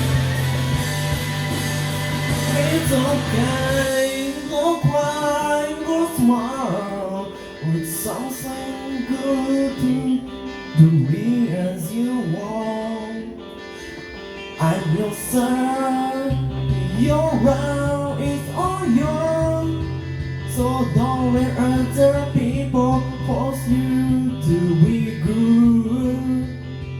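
Music: a guitar-backed pop-rock song with a steady low bass part. A gliding melodic line comes in over it about four seconds in.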